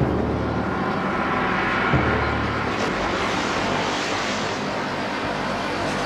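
Engine of a heavy earth-moving machine running, its low note swelling about two seconds in, over a steady loud rushing noise.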